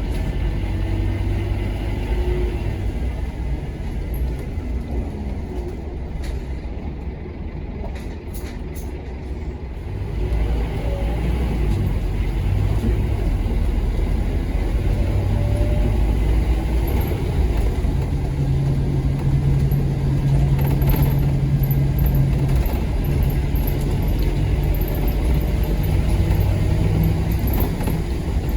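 Scania K230UB bus's diesel engine running through a ZF Ecomat automatic gearbox. It runs more quietly for about the first ten seconds, then grows louder and stays under load, as when the bus pulls away and accelerates.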